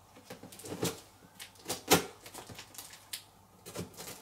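Packing tape being cut and picked off a taped cardboard parcel: a string of irregular scrapes, crackles and taps, the loudest about two seconds in.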